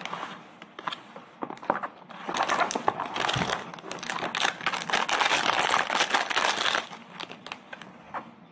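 Product packaging being handled and opened: crinkling and rustling with sharp clicks, loudest in a stretch from about two and a half to seven seconds in.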